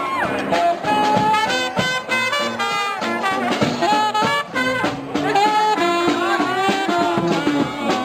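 Lively brass-band music, with horns playing a quick swinging tune over a steady beat.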